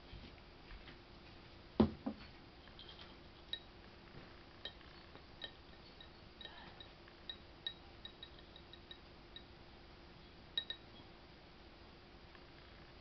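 Small ceramic bowl clinking and ticking as a cat eats from it, in irregular light clicks, with one louder knock about two seconds in and a quick double clink near the end.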